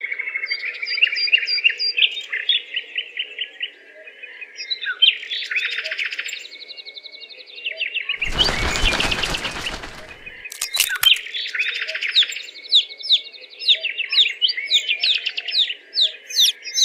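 Small birds chirping and trilling in rapid repeated calls, broken about eight seconds in by a loud rushing noise lasting about two seconds and a sharp click shortly after.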